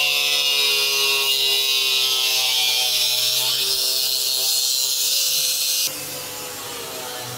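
Handheld angle grinder with a cut-off disc slicing through the sheet-metal roof of a van: a steady motor whine over a strong hiss of the disc on metal. About six seconds in it drops abruptly and sounds farther off while the grinding goes on.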